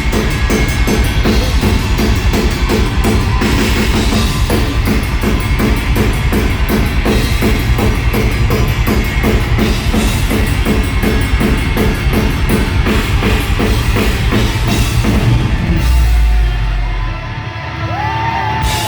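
Metalcore band playing live: distorted guitars over fast, even drumming with bass drum and cymbals. About sixteen seconds in, the band lands on a heavy low hit that rings out and the level drops.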